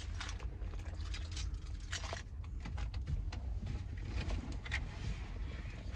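Scattered rustling and small clicks and knocks of someone rummaging through shopping bags and items inside a car, with clothing brushing the microphone, over a steady low rumble.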